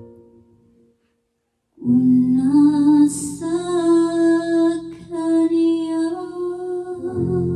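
A woman sings a slow ballad into a karaoke microphone, amplified through a JBL PartyBox On-The-Go portable speaker over an instrumental backing track. The sound cuts out for under a second near the start, then the singing resumes with long held notes. Near the end the voice eases off and the backing carries on.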